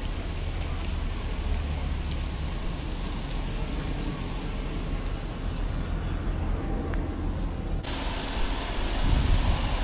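Outdoor background noise with a low rumble of wind on a body-worn microphone; a steady hiss comes in abruptly near the end.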